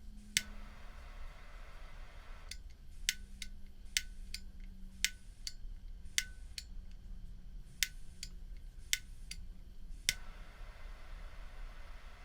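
Zippo lighter with a butane insert being worked: about a dozen sharp metallic clicks at irregular intervals, some ringing briefly. A faint hiss sounds between about half a second and two and a half seconds in, and again from about ten seconds in.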